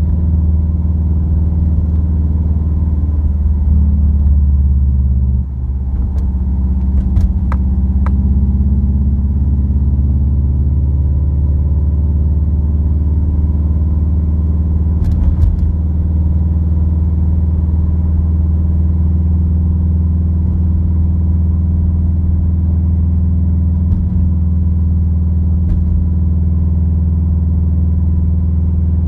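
Subaru WRX turbocharged flat-four with an Invidia N1 dual exhaust, heard from inside the cabin while cruising: a steady low exhaust drone. About five seconds in the engine note shifts and dips briefly. A few sharp knocks from road bumps come around seven seconds in and again midway.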